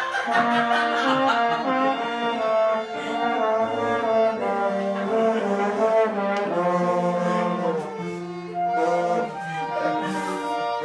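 Small mixed chamber ensemble of trombone, bassoon and violins playing together, held notes moving in chords that change every second or so.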